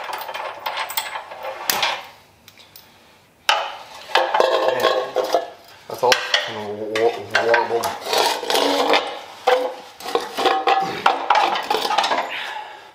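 Hand tools and steel suspension parts clinking and clanking as a wrench works the bolts of a rear hub and knuckle assembly. The clatter drops away about two seconds in and starts again, busier, about a second and a half later.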